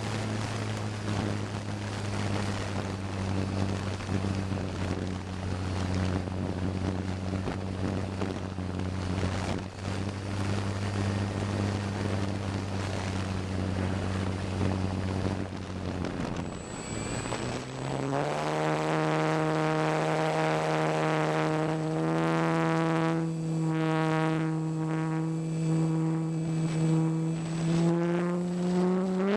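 Parkzone T-28 Trojan's electric motor and propeller heard from the plane's own camera, with rushing air noise. A steady low whine at part throttle dips about sixteen seconds in, climbs to a higher steady pitch as throttle is added, and rises again right at the end.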